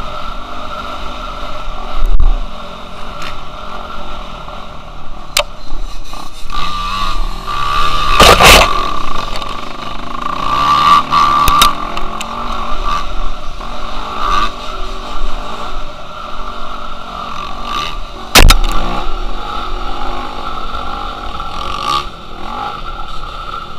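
Dirt bike engine running and revving up and down as the bike is ridden over a rough dirt track. Sharp knocks come from the bike over bumps, the loudest about 8 and 18 seconds in.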